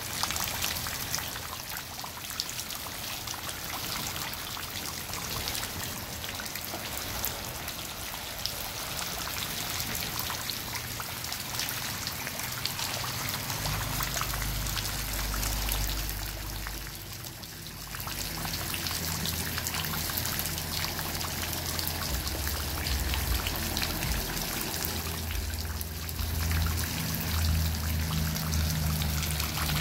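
Steady rain falling into shallow puddles, heard as a continuous hiss of many small drop ticks. A low rumble joins about halfway through and keeps on to the end.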